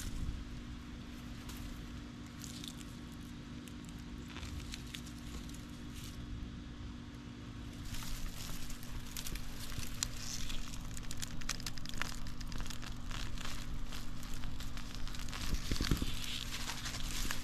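Dry garlic foliage crackling and rustling and soil crunching as garlic plants are gripped and pulled up by hand. The crackling turns busier about halfway in, with a dull thud near the end, over a faint steady hum.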